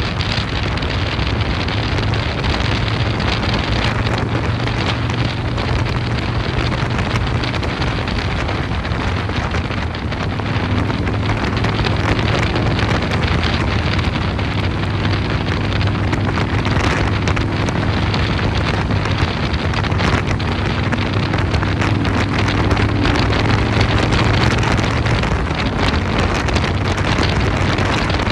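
Harley-Davidson Dyna Super Glide Custom's S&S 107 cubic inch V-twin running steadily through a Vance & Hines 2-into-1 exhaust while riding, under heavy wind noise on the microphone.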